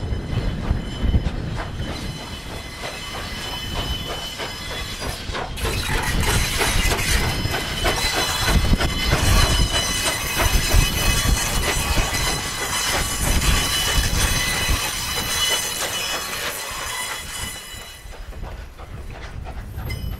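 Strasburg Rail Road No. 89, a 2-6-0 steam locomotive, passing close by with its wooden passenger coaches rolling behind. The wheels click over rail joints, and from about five seconds in a high-pitched squeal of wheel flanges rises over the rumble. The sound eases off near the end as the train moves away.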